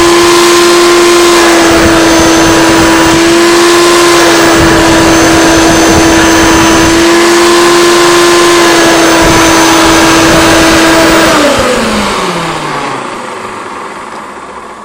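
Hoover Turbopower Freedom upright vacuum cleaner running in hose mode, its filter choked with flour, giving a loud steady motor whine with rushing air. It is switched off about eleven seconds in, and the whine falls in pitch as the motor spins down.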